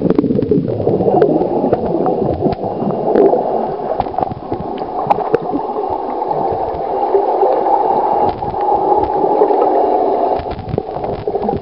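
Water heard through a submerged waterproof camera: a muffled, continuous rushing gurgle with scattered small clicks, and bubbles churning at the start just after the dive.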